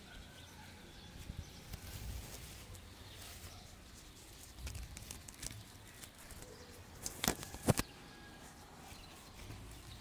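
Close handling rustle of fingers, fine nylon mist net and feathers as a hoopoe is picked free of the net, with a low rumble and scattered soft ticks. Two sharp clicks close together about seven seconds in.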